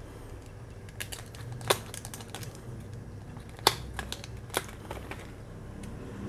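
Plastic packaging of a pair of snap ring pliers being pried open by hand: a few sharp, separate clicks and snaps as the tabs are pulled loose.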